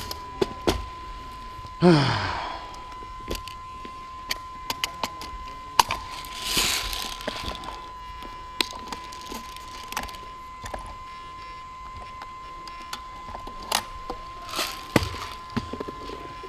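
Twigs and brush cracking and snapping underfoot, with gear rattling, as someone moves through woodland; a short, loud falling sound stands out near two seconds in, and a faint steady high whine runs underneath.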